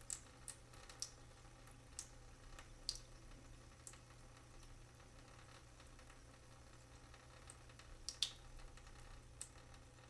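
Water dripping from a leak: single drops falling at irregular intervals, several in the first four seconds, then a gap, then a close pair about eight seconds in that are the loudest, over a faint low hum.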